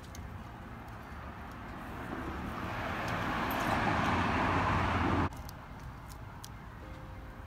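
A car driving past, its tyre and engine noise growing louder over about three seconds, then cut off abruptly a little past the middle.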